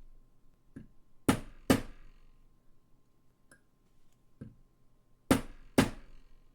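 Small hammer tapping metal at a watchmaker's bench, part of repairing the clock's mainspring barrel lid: two pairs of sharp taps, one about a second in and one near the end, with a few lighter clicks between.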